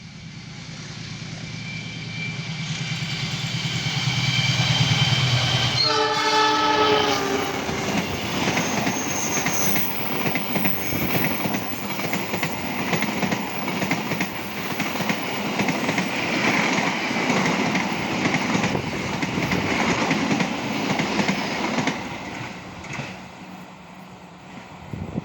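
A passenger train approaching at speed and sounding one short horn blast about six seconds in, then its wheels clattering over the rail joints as the cars rush past, fading away near the end.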